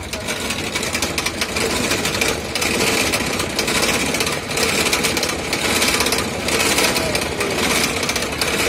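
Cotton candy machine running, its spinning head rattling steadily as pink sugar floss is wound onto a stick.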